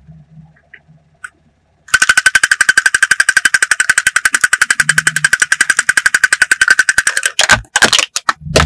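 Clockwork of a wind-up toy drummer running: rapid, even ticking, over a dozen clicks a second, starting about two seconds in. Near the end the ticking stops and a few louder cracks and scrapes follow as a car tyre rolls onto the plastic toy.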